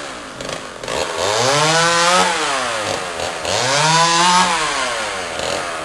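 Petrol chainsaw revving up and dropping back twice, each rev about a second long. A shorter rev follows near the end.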